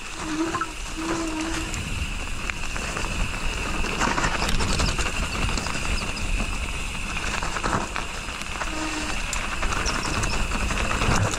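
Mountain bike rolling fast down a dirt and gravel trail: wind buffeting the helmet-mounted action camera's microphone, with tyre rumble and scattered knocks and rattles from the bike over the rough ground, under a steady high buzz.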